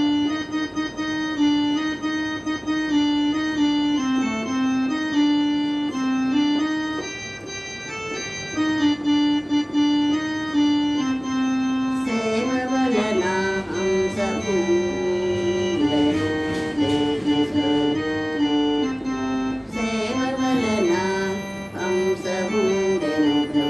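Electronic keyboard played with an organ voice: a slow Telugu devotional melody of held notes, with wavering, sliding notes about halfway through and again near the end.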